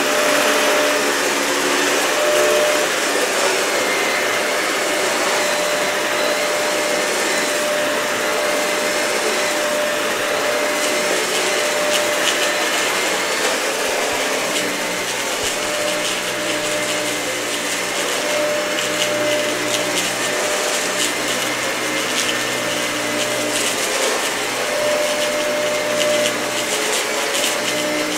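Dyson vacuum cleaner running steadily over a matted, dirty carpet, a constant motor hum with a steady whine. From about the middle on, short crackles come through as grit is sucked up.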